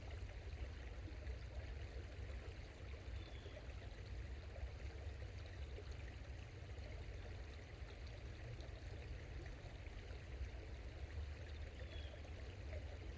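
A small forest creek babbling steadily, with a faint, short bird chirp twice.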